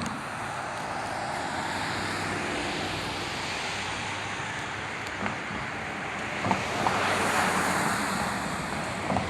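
Train passing at speed: a steady rushing rumble of wheels on rail, with a few faint clicks and a swell in loudness about seven seconds in.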